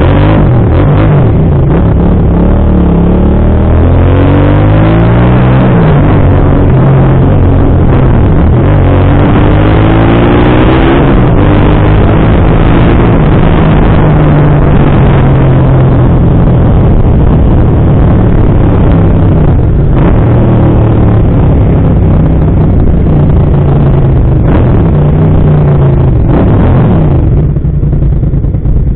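Motorcycle engine running loud under the rider, climbing in pitch again and again as it accelerates and shifts up through the gears, and easing off near the end as the bike slows.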